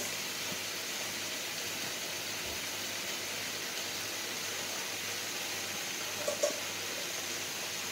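Vegetables and chicken sizzling steadily in an electric wok, an even hiss, with one brief faint sound about six seconds in.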